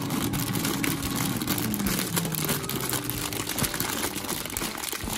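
Fresh broccoli florets tumbling from a plastic bag into a ceramic bowl: a continuous rustle of plastic and many small knocks of florets landing, over a steady low hum.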